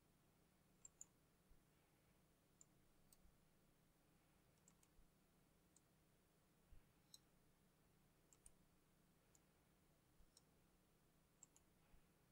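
Near silence with faint, irregular clicking from a computer mouse and keyboard, about fifteen scattered clicks, some in quick pairs.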